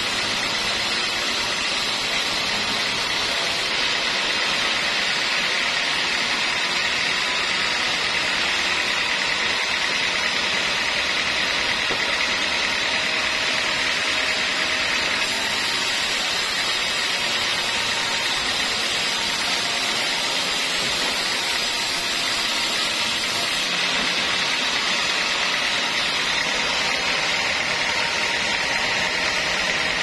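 Band sawmill blade cutting lengthwise through a teak beam: a loud, steady, high-pitched sawing noise that holds unchanged throughout.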